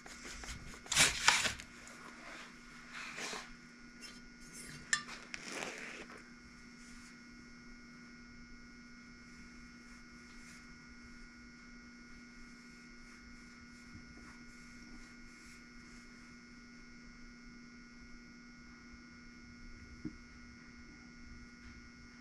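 Valve being lapped against its seat in a Chevy 327 cylinder head: a few short gritty scraping strokes over the first six seconds, the loudest about a second in. After that only a steady electrical hum with faint occasional ticks.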